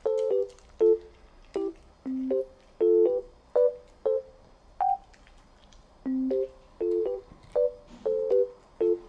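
Cute, bouncy background music: short staccato keyboard notes in a stop-start melody, with a brief pause about halfway through.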